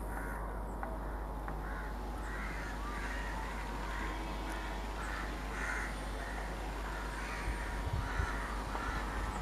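Crows cawing again and again over a steady low rumble, with low thuds building in the rumble near the end.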